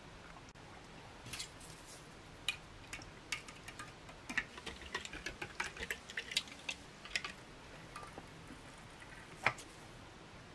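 Plastic spoon stirring a drink in a drinking glass, clinking against the glass in a quick, irregular run of light ticks, then one sharper click near the end.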